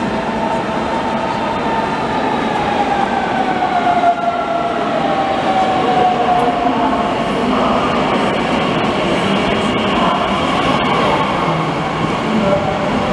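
Red regional electric multiple-unit train running in and braking alongside the platform. A clear whine falls in pitch over the first half as it slows, over a steady rumble and rattle of the cars.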